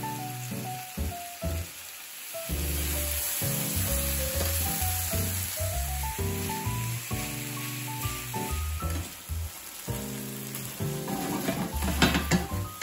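Vegetables and minced chicken sizzling as they stir-fry in a frying pan, with a slotted spatula scraping and clicking against the pan near the end. Light background music with a simple melody plays over it.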